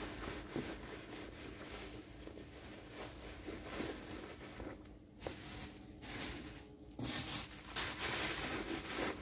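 Plastic stuffing crinkling and rustling as it is pushed into a faux-leather handbag, with the bag's handling noise; louder near the end.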